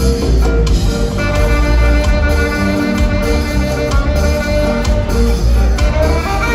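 Ska instrumental band music: walking bass and a steady offbeat rhythm, with a sustained horn melody line coming in about a second in.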